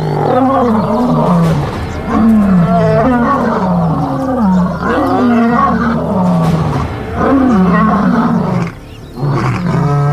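Lions snarling and growling at close quarters: a string of overlapping calls, each sliding down in pitch, with a brief lull near the end.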